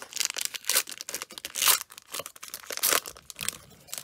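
Foil wrapper of a Panini Prizm Draft Picks football card pack being torn open and crinkled by hand: a run of crackling rips, with two louder tears, one about halfway through and one near the end.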